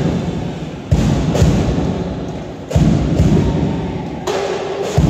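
Deep, heavy thuds echoing through a large gymnasium hall, about four in five seconds, each booming on for a second or more.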